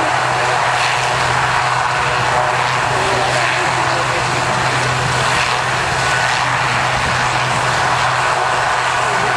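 Steady drone of an aircraft engine: a constant low hum under a wide, even noise that does not change.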